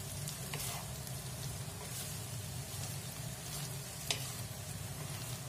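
Fried rice sizzling in a non-stick pan as it is stirred and tossed with a spatula, over a steady frying hiss. A few sharp knocks of the spatula against the pan cut through, the loudest about four seconds in.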